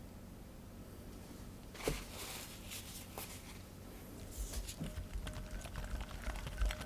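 Kitchen utensils and a mixing bowl being handled while madeleine batter is made. There is a sharp clink about two seconds in, then rustling and scattered light clicks and scrapes that grow busier in the second half.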